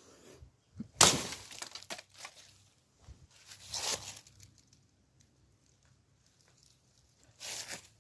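A sharp crash about a second in that trails off over about a second, then a shorter noisy rush near four seconds and another near the end.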